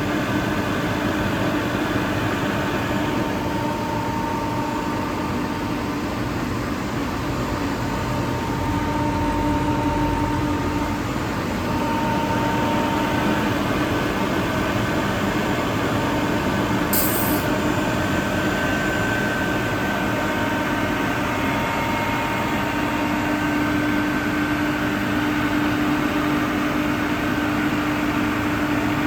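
A 22 kW Kaeser ASK 35 T rotary screw air compressor running steadily: a dense mechanical drone with a few steady tones in it. A short high hiss about halfway through.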